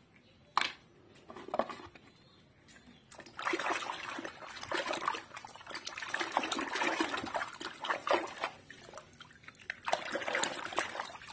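A few sharp knocks, then a hand sloshing and splashing through a basin of foamy soapy water, with many quick splashes, easing off near the end.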